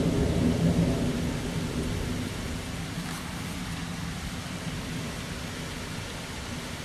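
Thunder rumbling and dying away over the first two to three seconds, over steady rain.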